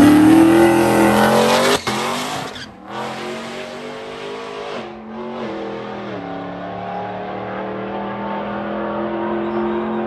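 LT4-swapped supercharged V8 of an OBS Chevy truck at full throttle down a drag strip, its pitch climbing and then dropping with each quick upshift of the 10-speed automatic. It is loudest for the first two seconds, then quieter as the truck pulls away, stepping through several more shifts.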